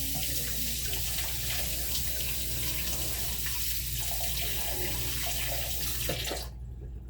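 Water running from a tap into a sink in a steady rush, shut off near the end.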